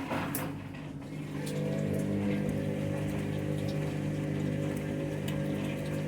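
Candy washing machine's motor turning the drum with a steady hum and scattered light clicks, growing louder about a second and a half in. The load of bedding is a bit out of balance.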